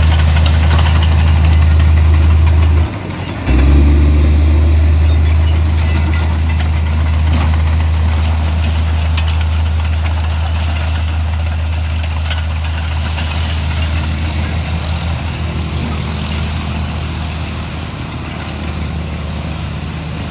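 Heavy diesel engine of earthmoving machinery running steadily with a deep low hum. It dips briefly about three seconds in, then carries on and slowly grows quieter.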